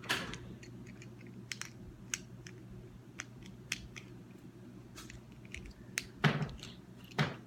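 Plastic Lego pieces clicking and knocking as they are handled and fitted together, scattered sharp clicks with a few louder knocks near the start and end.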